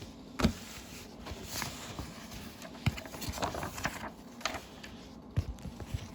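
Plastic model-kit parts and packaging being handled and moved: scattered light clicks and rustles, with a few soft thumps.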